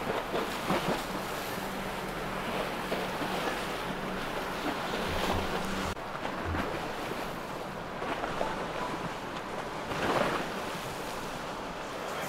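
Outdoor waterside noise: wind buffeting the microphone over lapping water, with a steady low boat-engine hum that breaks off abruptly about halfway through.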